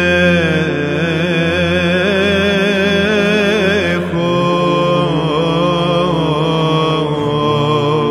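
Solo male voice singing a long wordless melisma of Byzantine chant, the held notes wavering and gliding slowly, over a low sustained drone (ison) that shifts about four seconds in.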